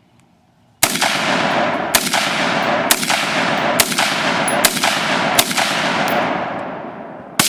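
AR-15 rifle firing seven sharp shots: six at a steady pace of about one a second, then a pause and a seventh near the end. Each shot is followed by a long, fading echo.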